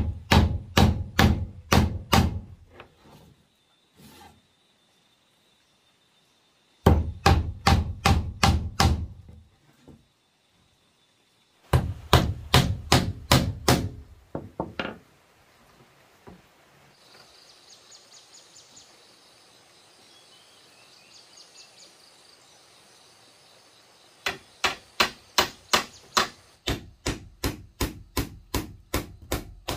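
Claw hammer driving nails into wooden strips, in four runs of quick sharp strikes about three or four a second with pauses between.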